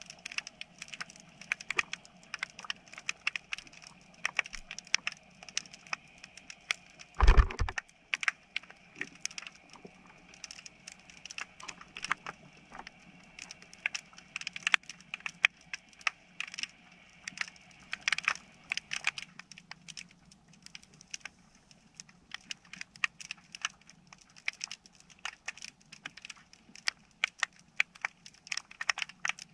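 Underwater crackle of many irregular sharp clicks, typical of snapping shrimp on a shallow oyster bed. One loud, low thump comes about seven seconds in.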